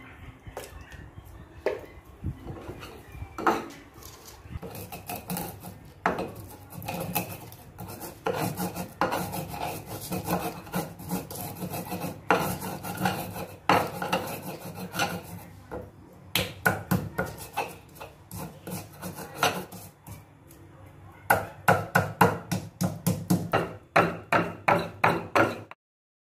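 Stone pestle grinding and pounding garlic, shallots, candlenut, cumin and salt in a stone mortar (Indonesian cobek and ulekan), gritty scraping strokes with knocks of stone on stone, pureeing them into a spice paste. The strokes are sparse at first, then come thick and fast, about three a second near the end, before the sound cuts off suddenly.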